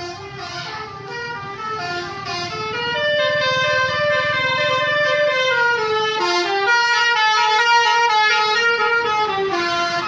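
A bus's Basuri telolet horn, a multi-trumpet musical air horn, playing a melody of stepped notes. It grows louder about three seconds in.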